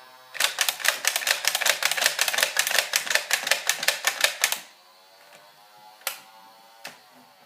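Battery-powered Nerf pistol firing in a rapid burst: a fast clatter of sharp clicks, about six a second, for about four seconds, then a couple of single clicks.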